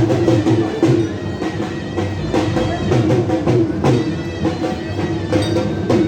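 Music with regular drumbeats over a steady, droning held note from a wind instrument.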